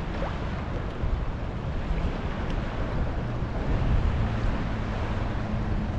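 Wind buffeting the microphone and small waves lapping at a kayak's hull, an even rushing wash. A low steady hum comes in about halfway through.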